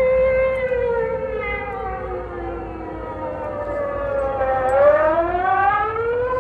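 Air raid siren wailing: a steady tone that slides down in pitch over a few seconds, then climbs back up about five seconds in.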